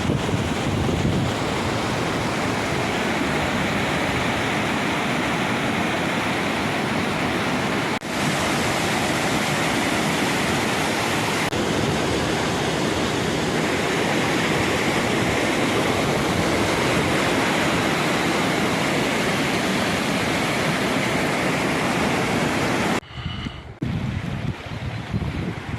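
Waterfall rushing, a steady, loud, even roar of falling water. About three seconds before the end it cuts to quieter, gusty wind noise on the microphone.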